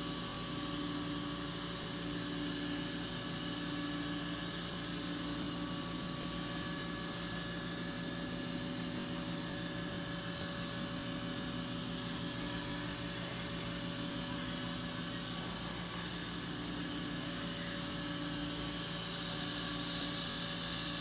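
Steady mechanical hum of reef aquarium equipment such as pumps, with several constant tones. A low tone pulses on and off about once a second for the first five seconds and again near the end.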